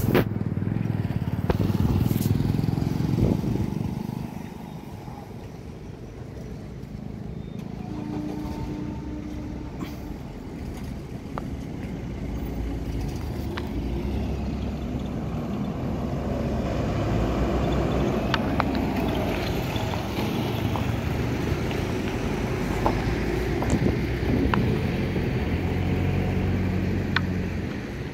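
Motor vehicle engine running steadily, a low continuous hum that drops in loudness for a few seconds about four seconds in.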